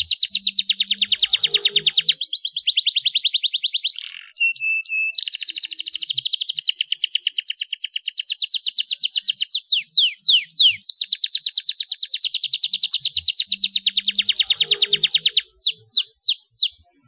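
Starblue canary singing a loud, long song of fast repeated trills, about a dozen notes a second. About four seconds in there is a brief break and a held whistle, and quick falling sweeps come near the middle and again at the end.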